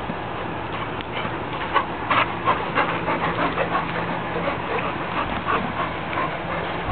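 A dog panting close to the microphone, with quick rhythmic breaths starting about a second in.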